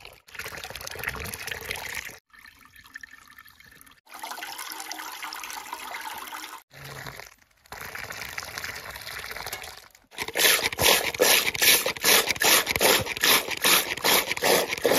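Melon juice being poured into a 20-litre can, liquid splashing and gurgling as the can fills. Several short takes are cut together. The last few seconds are louder, with quick regular gulps about three a second.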